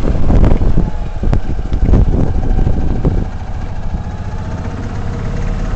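Engine of a Tracker OX400 side-by-side running, loud and rough with a few knocks for about the first three seconds, then dropping to a quieter, steady run.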